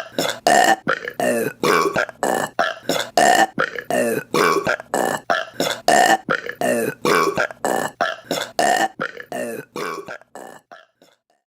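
A rapid series of short burps from women, about three a second. They grow fainter and die away shortly before the end.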